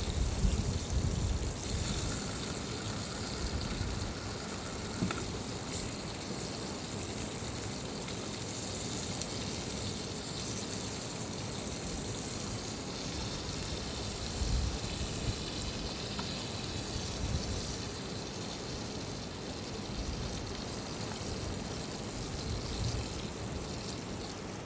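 Steady rush of flowing river water, an even noise with no let-up.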